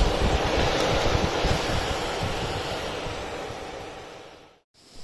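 A motorcycle's radiator cooling fan running with a steady rush of air over a gusty low rumble. The sound fades out over the last two seconds.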